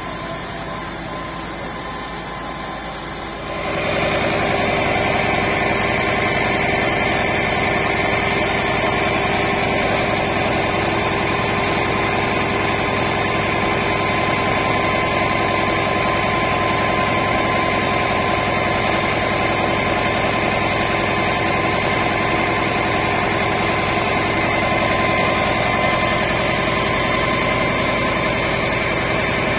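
A vehicle engine running steadily with a constant hum. It steps up in level about four seconds in and then holds.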